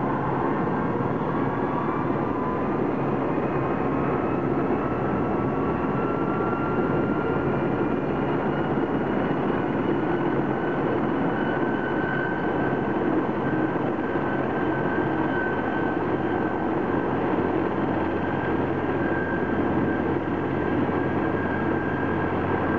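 Fire-department medevac helicopter running on the ground: a steady turbine whine over the turning main rotor. The whine rises slowly in pitch over the first ten seconds or so, then holds steady.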